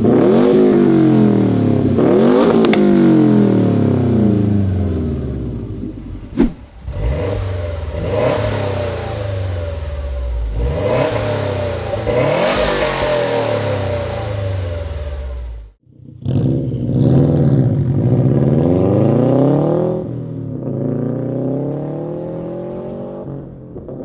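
Subaru WRX STI's turbocharged EJ flat-four boxer engine heard through an AWE Track Edition catback exhaust. The engine is accelerating repeatedly, its pitch climbing and then dropping back at each shift or lift. The sound breaks off briefly about two-thirds of the way through.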